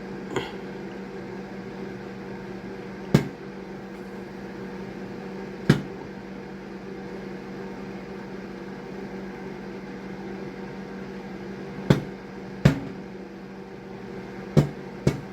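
Microwave oven running with a steady hum while ginkgo nuts in a lidded container inside crack and pop sharply, about seven pops at irregular intervals. The pops are the nuts' shells bursting open in the heat as they roast.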